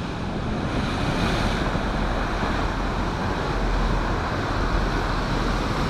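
Storm-driven sea surf, waves breaking and washing in a steady rush, with wind buffeting the microphone as a low rumble underneath.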